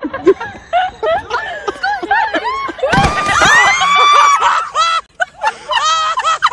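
People's voices shrieking and laughing, with one long high-pitched yell about three seconds in and a quick run of laughter near the end.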